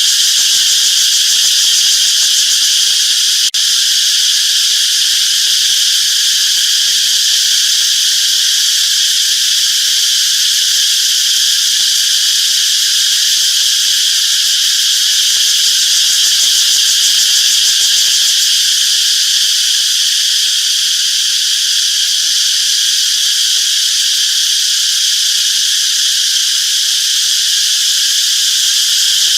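Cicadas singing: a loud, steady, high buzzing drone that holds without a break, with a brief click about three and a half seconds in.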